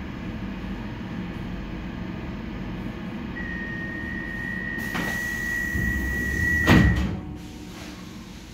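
Stockholm metro C14 car's door-closing warning: a steady single high tone sounds for a few seconds over the low hum of the standing train. The sliding doors knock once about five seconds in, then shut with a loud bang near seven seconds, where the tone stops.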